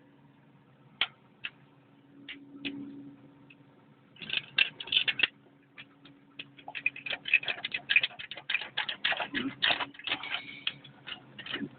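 Sharp metallic clicks and clinks of steel parts and hand tools being handled while an excavator's hydraulic drive motor is taken apart: a few single clicks at first, then dense runs of rapid clicking from about four seconds in. A faint steady hum lies underneath.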